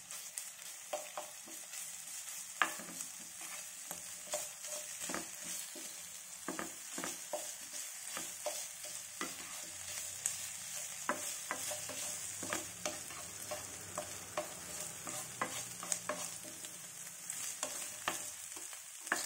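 Onion, bell pepper and green chilli pieces frying in oil in a nonstick pan with a soft, steady sizzle, while a wooden spatula stirs them, scraping and tapping the pan in many short strokes.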